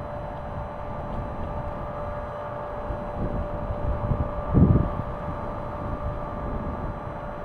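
Wind gusting against a Rode VideoMic Go fitted with a furry windshield: low rumbling buffets that swell and fade, the strongest gust about four and a half seconds in, over a steady background hum.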